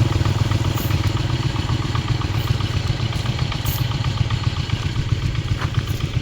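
Small engine running at a steady speed.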